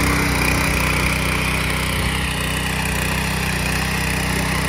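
7.5 HP power tiller (SP-1100 power weeder) engine running steadily under load, its rotary tines churning through dry soil.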